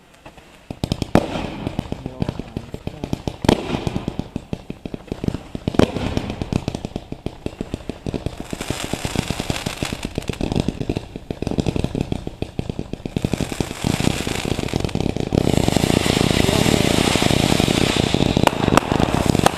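Fireworks and firecrackers going off: rapid crackling pops with louder sharp bangs every second or two, building to a dense, continuous crackle in the last few seconds.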